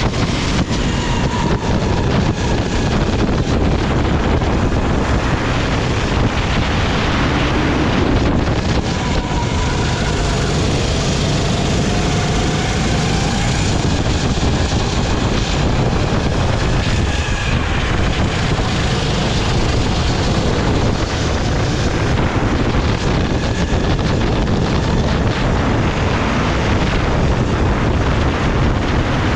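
Kart engine at racing speed heard from an onboard camera, its pitch rising and falling with throttle through the corners, largely covered by wind buffeting the microphone.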